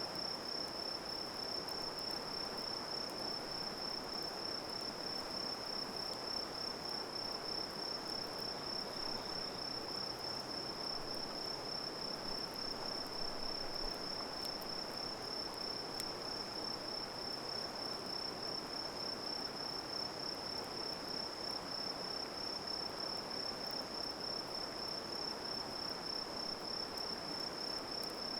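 Crickets or similar singing insects holding one steady, unbroken high-pitched trill, over an even rushing background noise, with a few faint crackles.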